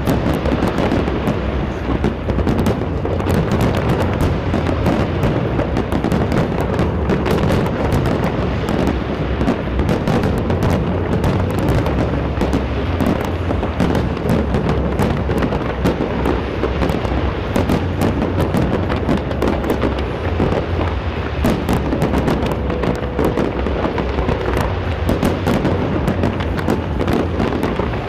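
Large fireworks display: a dense, continuous barrage of booms and rapid crackling bangs, with music underneath.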